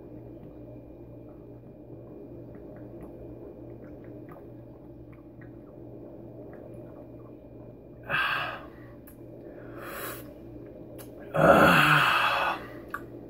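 A man drinking long from a bottle, with faint gulps over a steady low hum, then a sharp breath about eight seconds in and a loud gasping exhale near the end as he comes off the bottle.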